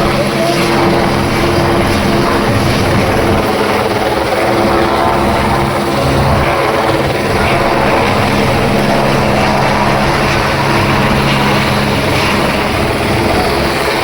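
Helicopter flying low overhead, its rotor and engine making a loud, steady drone.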